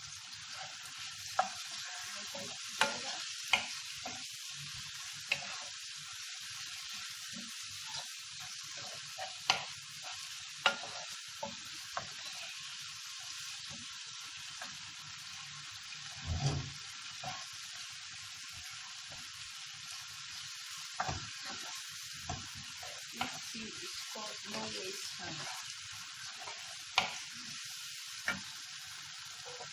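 Sliced onions, green bell pepper and tomatoes sizzling steadily in a non-stick frying pan while a wooden spatula stirs them, with sharp knocks of the spatula against the pan now and then.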